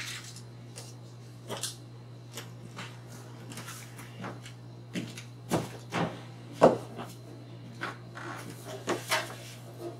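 Scattered knocks, bumps and clatter of things being handled and moved while someone rummages around a bedroom, the sharpest knock about two-thirds of the way in, over a steady low hum.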